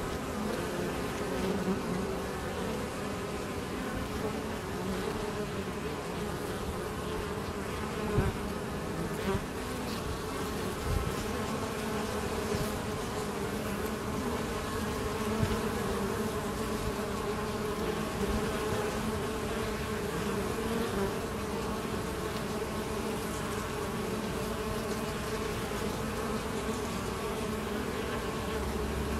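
Honey bees buzzing at a busy hive entrance: a steady hum of many wings, with a few brief louder moments. The bees are foraging heavily for pollen.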